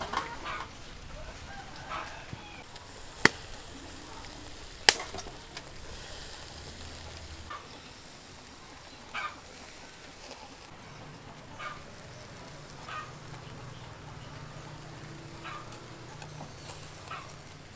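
Squid grilling over charcoal on a wire grate, with a steady sizzle and metal tongs clicking against the grate. Two sharp clicks, a second and a half apart, are the loudest.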